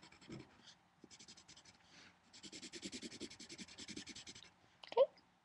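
Graphite pencil shading on paper: quick back-and-forth scratching strokes in a few runs, as an area is coloured in. A brief, louder sound comes near the end.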